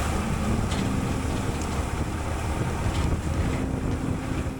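Farm tractor engine running steadily under load while pulling a roller crimper through tall rye.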